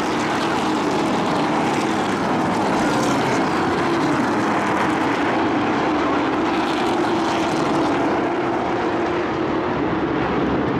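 A field of racing pickup trucks running around a paved oval, their engines blending into one loud, steady drone.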